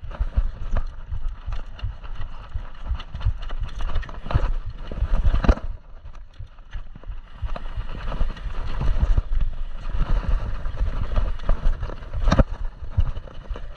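Downhill mountain bike ridden fast over a dirt trail: a constant wind rumble on the camera mic with frequent sharp knocks and rattles from the bike over bumps and roots, the loudest knocks about five seconds in and about twelve seconds in.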